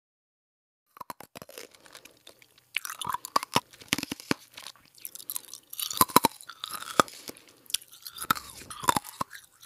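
A dog chewing and crunching food, in several bursts of sharp crunches with short pauses between.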